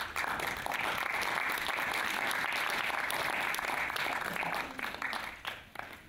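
Audience applauding steadily, then dying away into scattered single claps over the last second or two.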